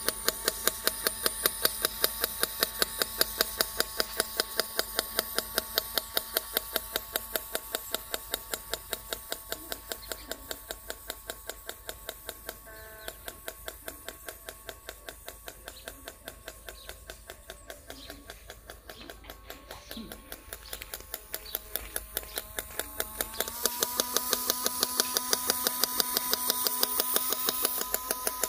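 Small electric motors of a miniature metal motorcycle model running with a steady whine and a regular knock about three or four times a second, like a single-cylinder thump. A little over 23 seconds in, the whine steps up in pitch and gets louder.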